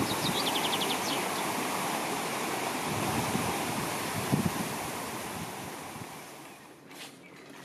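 Steady outdoor rushing noise, with a short rising bird trill about half a second in and a couple of low thumps. It fades out over the last few seconds.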